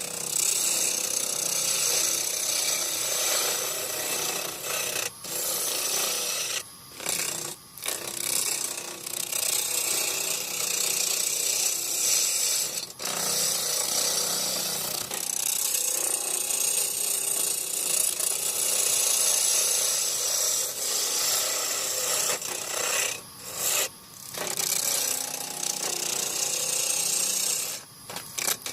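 Turning tool cutting wood spinning on a lathe: a steady scraping hiss, broken by several brief gaps where the cutting stops.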